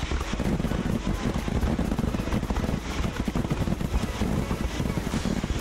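Fireworks barrage: many shells bursting in quick overlapping succession, merging into a continuous rumble of booms.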